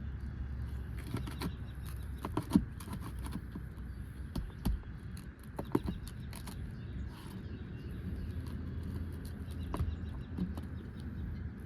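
Irregular clicks, taps and scrapes of a tool prying nails out from under asphalt shingles, with a few sharper knocks, over a steady low rumble.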